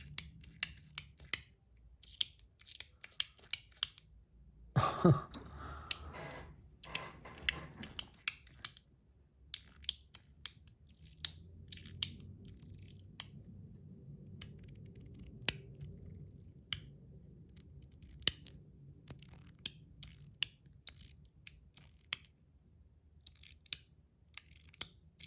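Metal Toys DZ Top B, a Zircuti metal fidget fitted with a ZZ detent plate, clicking again and again as it is worked by hand: irregular runs of sharp little metal clicks. A short, louder rustle of handling comes about five seconds in.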